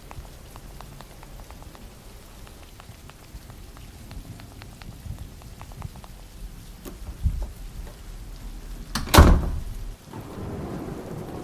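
Steady rain with a crack of thunder about nine seconds in, the loudest moment, followed by a low rumble.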